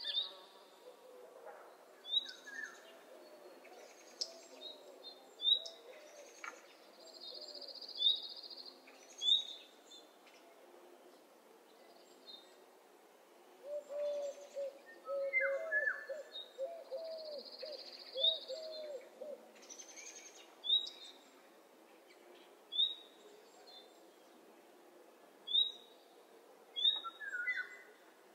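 Morning birdsong soundscape: many birds calling with short high chirps every second or two, three buzzy high trills of a second or so, and a run of lower wavering notes in the middle.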